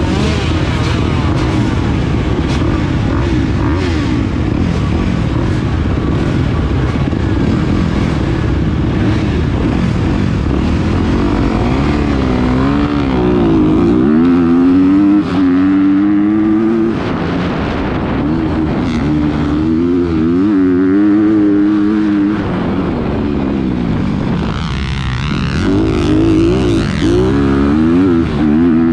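Motocross bike engines: at first several dirt bikes running together in a dense jumble, then from about halfway the rider's own bike clearly in front, its pitch climbing and falling again and again as it accelerates through the gears and backs off on the dirt track.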